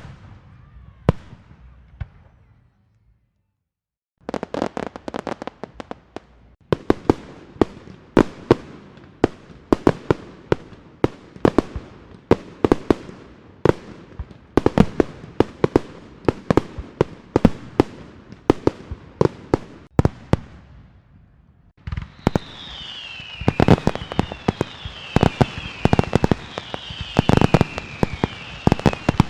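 Fireworks: a sharp bang at the start and another a second later, then a short silence, then long runs of rapid firecracker cracks and pops. About two-thirds of the way in, repeated falling whistles join the crackle.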